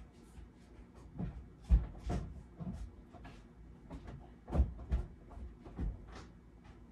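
About seven dull knocks and thumps at irregular intervals, the loudest just under two seconds in and about four and a half seconds in.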